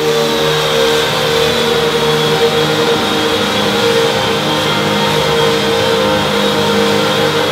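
Electric belt sander with an 80-grit belt running steadily over timber floorboards: a constant motor whine over the rasp of the belt on the wood.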